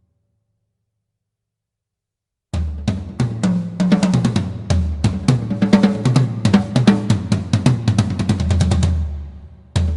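Premier Elite Series birch drum kit played in a quick run of snare, tom and bass drum strokes, the drums ringing with a clear low pitch. It starts about two and a half seconds in, rings out around nine seconds, and starts again just before the end.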